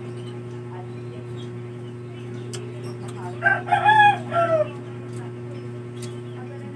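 A rooster crows once, a pitched call a little over a second long just past the middle that falls at its end, over a steady low hum. A few faint clicks.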